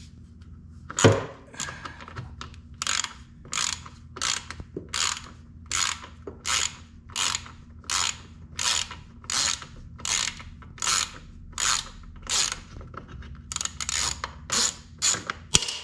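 Socket ratchet backing out a 10 mm bolt: a sharp click about a second in, then an even run of short ratcheting strokes, about one and a half a second, each a quick burst of pawl clicks on the back-swing.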